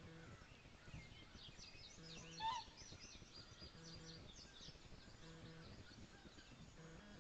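Faint bird twittering, many quick high chirps, with one short, louder bird call about two and a half seconds in.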